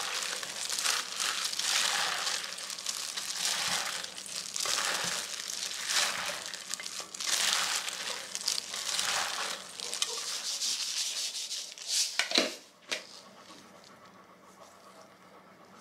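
Disposable plastic glove crinkling and rustling as a hand tosses and squishes dressed acorn jelly salad in a stainless steel bowl, in irregular strokes. A couple of louder strokes come about twelve seconds in, and the rustling stops soon after.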